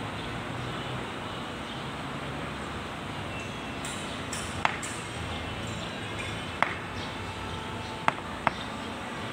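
Four sharp metallic clinks in the second half, the last two close together, from a wrench and bolts against a tractor's front-axle hub cover. A steady background hiss runs beneath them.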